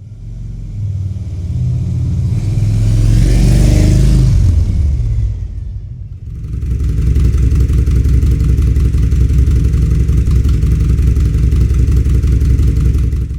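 A motor vehicle passes by, its engine rising to a peak about four seconds in and then fading. Near the middle it changes abruptly to a different recording of a steady engine running at an even speed, which stops suddenly at the end.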